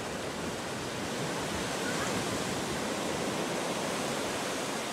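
Ocean surf washing up a sand beach: a steady, even rush of breaking waves.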